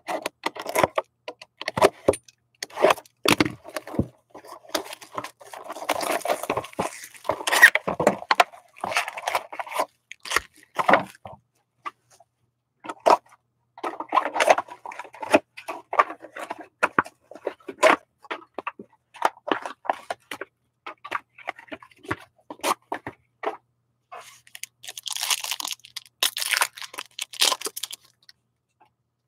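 Handling a hobby box of hockey trading cards, with rustling and crinkling wrap, cardboard clicks and packs set down on a mat. Near the end comes a few seconds of wrapping being torn.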